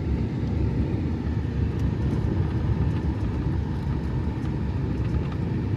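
Car driving through a blizzard on a snowy road: a steady low rumble of road and wind noise heard from inside the cabin.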